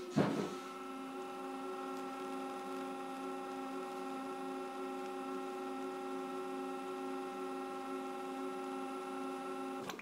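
Bean-to-cup coffee machine brewing espresso: a short knock, then its pump runs with a steady hum while the shot is dispensed, stopping near the end.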